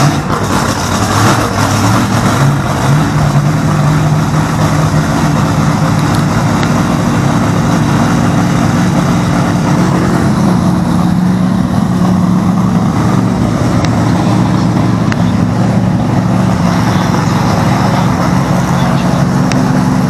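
A drag race car's engine running loudly and steadily in the pits, holding one engine speed throughout.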